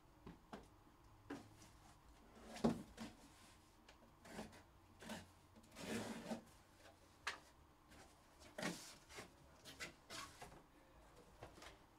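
Faint, irregular handling noises: rubbing, scraping and light knocks, a dozen or so short ones with the loudest about a quarter of the way in.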